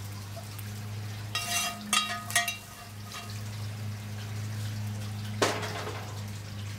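Metal spoon knocking and scraping against a skillet several times, ringing, as browned sausage is tapped out of it, then one more clank about five and a half seconds in. A steady low hum runs underneath.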